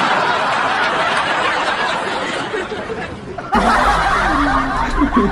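People laughing and snickering. There is an abrupt cut about three and a half seconds in, after which a low rumble runs under the laughter.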